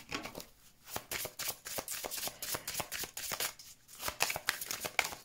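A deck of divination cards being shuffled by hand: runs of quick papery clicks as the cards slide and slap together, with two brief pauses, about half a second in and about three and a half seconds in.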